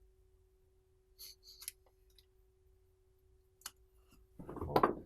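A few light metallic clicks of a screwdriver against a brake caliper. Near the end comes a louder scraping burst, lasting under a second, as a new rubber guide-pin bushing, slicked with silicone spray, is worked into its bore in the caliper.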